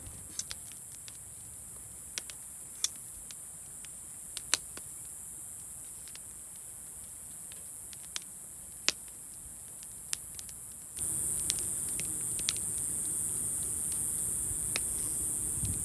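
A steady, high-pitched chorus of night insects with scattered sharp clicks. About eleven seconds in, the sound cuts to a louder insect chorus with a low rumble underneath.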